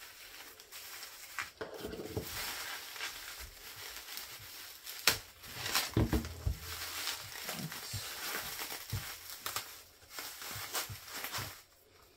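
Bubble wrap crinkling and rustling as it is cut open and pulled away from the albums, with a few sharp clicks and low knocks.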